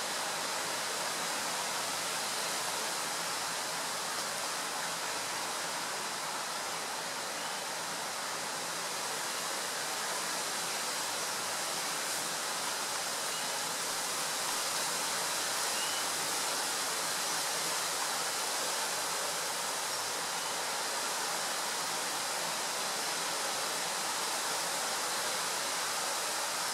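Steady outdoor background hiss, even and unbroken, with a faint steady high whine running through it.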